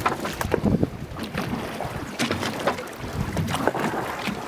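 Wind buffeting the microphone over the low rumble of a boat on open water, with scattered short crackles.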